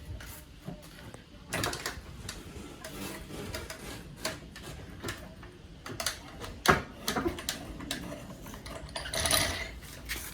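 Irregular metallic clicks and clanks of a car being lowered off its jack, with one louder clank about two-thirds of the way through and a short rustling burst near the end.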